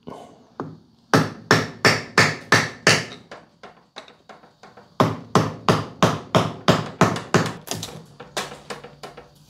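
Hammer tapping a screwdriver in behind the old input shaft seal of an NP241C transfer case to drive it out: two runs of quick taps, about four a second, with a short pause between them, the later taps growing fainter. The seal is old and brittle, breaking up as it is worked out.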